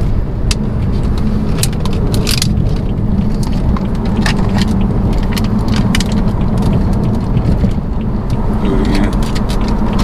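BMW 328i sedan driving in traffic with the windows down: its engine and road noise drone steadily inside the cabin, with scattered short clicks and taps throughout.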